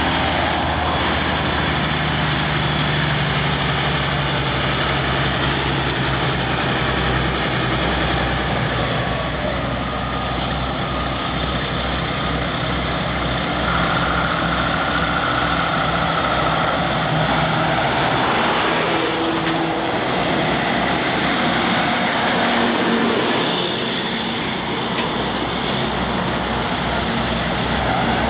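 Heavy diesel engine running steadily at low revs, with a constant low drone.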